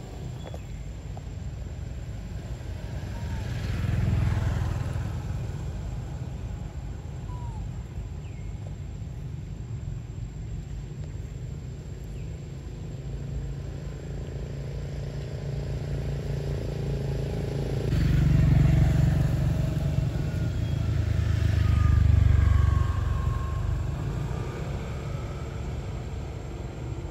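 Low rumble of motor vehicles going past, swelling about four seconds in and again for several seconds in the second half, with a falling engine pitch as they pass.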